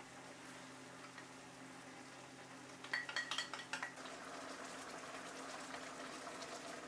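A metal utensil clinks against a pan or dish in a quick run of taps about three seconds in, followed by a steady soft sizzle of food cooking in the pan.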